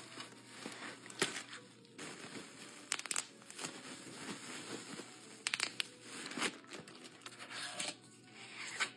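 Plastic bag and bubble wrap crinkling and rustling as they are handled and pulled off a small boxed pan, with many sharp crackles.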